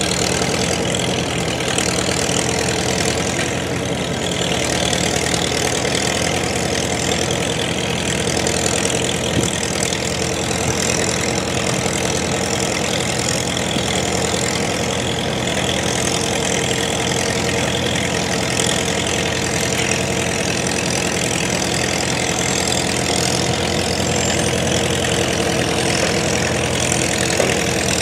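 Vintage farm tractor engines idling steadily, a continuous low running sound without breaks.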